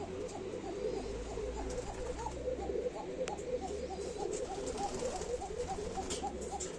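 Many domestic pigeons cooing together in a loft, their short, repeated coos overlapping without pause.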